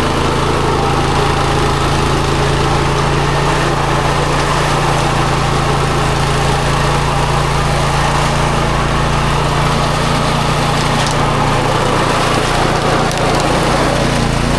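Snowblower's small gas engine running steadily at a constant speed.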